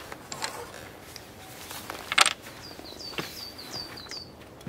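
A small songbird sings a quick run of repeated high, upward-hooked notes, about five a second, in the last part. A little over two seconds in, a single sharp clack, the loudest sound, stands out over quiet outdoor ambience.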